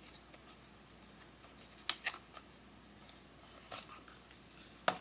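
A small product box being opened by hand: a few sharp clicks and scrapes of packaging, a cluster about two seconds in and another near the end.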